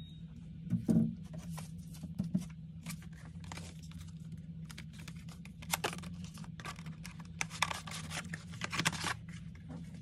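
Clear plastic protective film being peeled and pulled off the back glass of an iPhone 11, crackling and tearing irregularly, with a thump about a second in. A steady low hum runs underneath.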